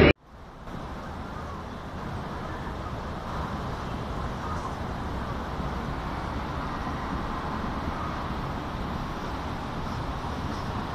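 Steady rushing noise with no distinct events, starting abruptly and swelling a little over the first few seconds: outdoor storm ambience at a bridge over the flood-swollen Cali River, floodwater rushing below with road traffic mixed in.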